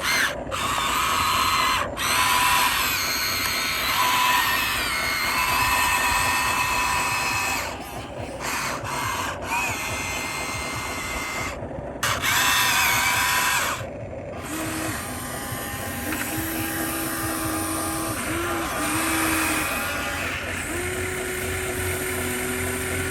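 Small electric motors and gearboxes of remote-control construction models whining. They stop and start again several times, and the pitch shifts as they change speed.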